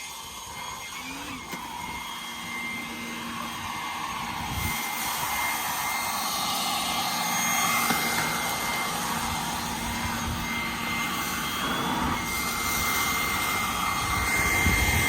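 Leaf blower running steadily with a whine over a rushing air noise. It builds up over the first few seconds, then holds.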